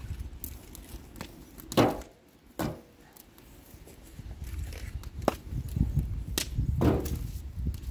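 Wood fire burning in a steel drum fire pit, crackling with a handful of sharp, separate pops over a low rumble; the loudest pop comes about two seconds in.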